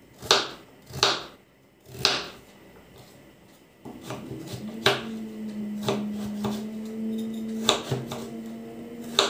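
Kitchen knife chopping a carrot into cubes on a wooden cutting board: a few sharp taps about a second apart, a pause, then more taps. A steady low hum comes in about halfway through.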